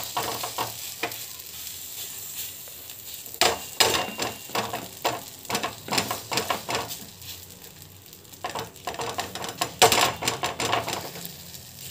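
A hand patting and pressing soft finger-millet (ragi) roti dough flat onto an oiled tawa, a run of quick irregular slaps and wet smearing strokes.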